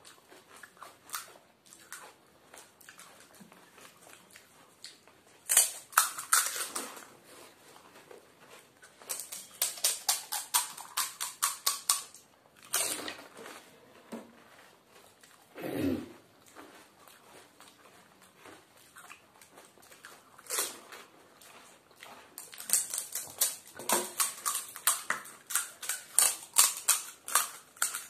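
Crisp fried fuchka (pani puri) shells being cracked open and crunched in the mouth. The sound comes in several bursts of quick, sharp crackling crunches with quieter gaps between them.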